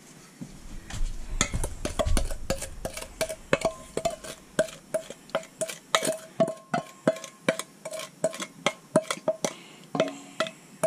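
Spatula scraping creamed butter-and-sugar batter out of one mixing bowl into a stainless steel bowl, knocking against the bowls about three times a second, each knock followed by a short ring.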